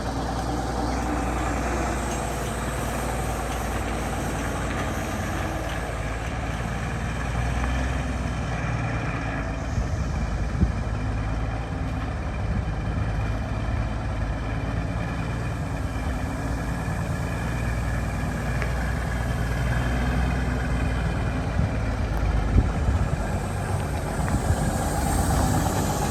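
1966 Kenworth W900 dump truck's diesel engine idling steadily through new straight pipes, with a couple of short knocks.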